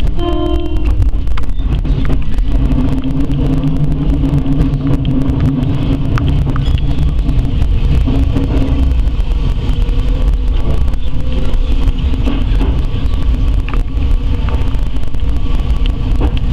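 Electric commuter train running over the rails into a curved terminal platform, with a steady low rumble and a motor hum, heard from the front of the train.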